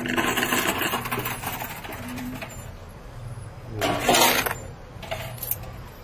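Coin pusher arcade machine running: a steady motor hum under coins clinking and sliding, with a short, louder burst of noise about four seconds in.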